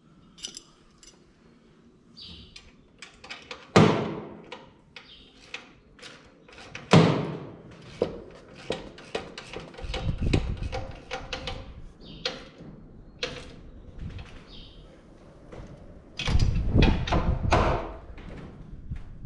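Clicks, knocks and clunks of hand work on a tractor's cab and fender as parts are handled and fitted, with sharp knocks about four and seven seconds in and a run of heavier thumps near the end.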